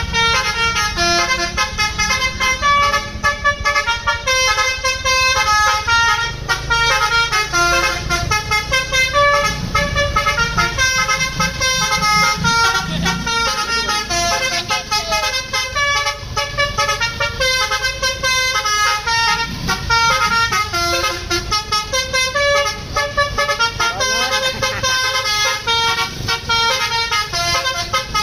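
Bus 'basuri' telolet horn, a multi-tone horn, playing a fast melody of short notes that step up and down without a break, over the low rumble of the coach's engine.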